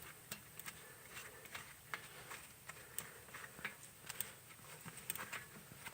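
Faint, scattered small clicks and taps from brake parts and tools being handled while the caliper bolts are fitted.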